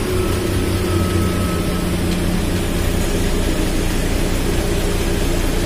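Nissan Diesel car-lifter truck's diesel engine running steadily with its PTO engaged for the hydraulics, a low even drone.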